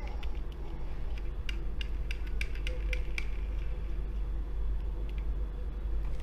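Small, irregular metallic clicks and taps as a die-cast metal toy fire truck is handled and turned over in the fingers, mostly in the first half, over a steady low hum.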